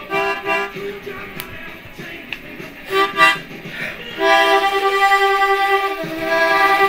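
Harmonica played with cupped hands: two short bursts of notes, then a longer stretch of held notes from about four seconds in.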